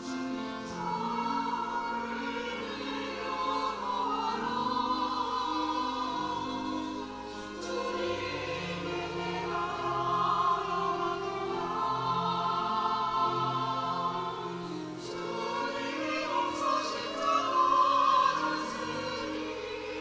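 Church choir singing in parts with piano accompaniment, sustained chords that swell louder near the end.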